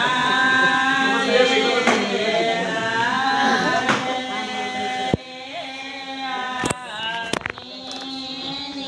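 Voices singing a slow chant with long held notes. About five seconds in it suddenly drops in level, with a few sharp clicks.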